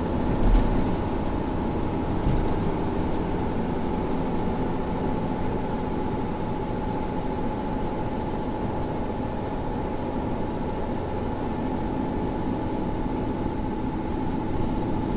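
Steady road and engine noise of a car cruising on an expressway, heard from inside the cabin, with a steady whine running through it.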